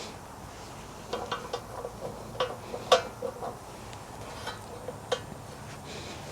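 Light metallic clinks and taps of tools and metal parts being handled, a scattered run of them between about one and three and a half seconds in, the sharpest near three seconds, with one more about five seconds in.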